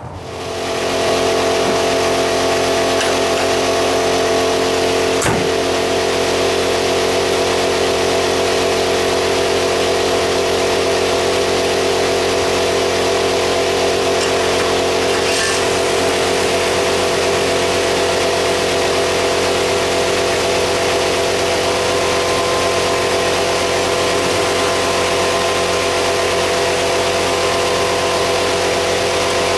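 The 2000 Mercury Villager's 3.3 L V6 engine running steadily at idle on its newly replaced distributor. A single sharp knock sounds about five seconds in.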